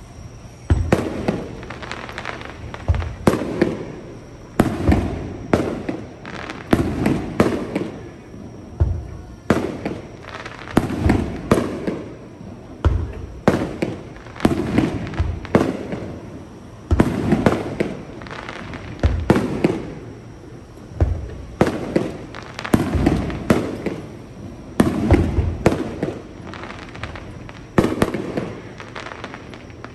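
Aerial fireworks shells bursting in rapid succession, a sharp bang every second or so, each trailing off in a rumble.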